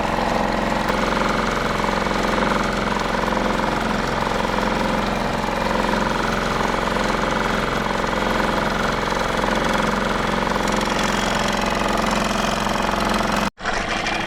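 Small boat's outboard motor running steadily at a constant speed, with a momentary break near the end.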